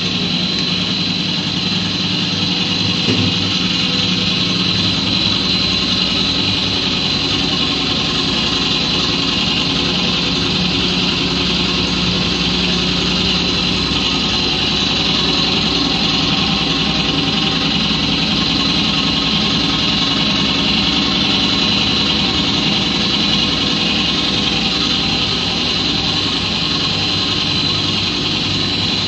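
Blown film plant running steadily: a continuous machine drone with a steady high-pitched whine over it.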